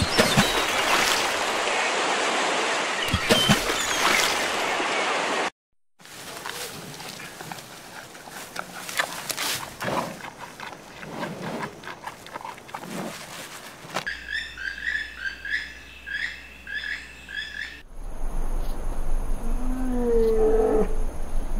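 Water splashing as brown pelicans thrash at the surface, then a giant panda crunching and chewing bamboo stalks with crackling clicks. A bird then chirps a short call about twice a second for a few seconds. Near the end a lion gives a low, drawn-out moan as it yawns.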